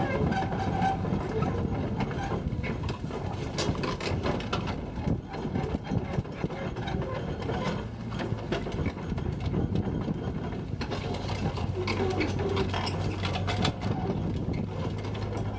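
Kubota U-40-3 mini excavator's diesel engine running steadily under hydraulic load as the machine slews round and works its boom and arm, with scattered clanks and knocks from the machine.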